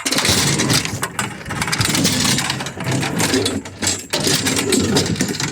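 Scrap metal scraping and rattling as a piece is slid into place on a loaded pile, with many small knocks along the way.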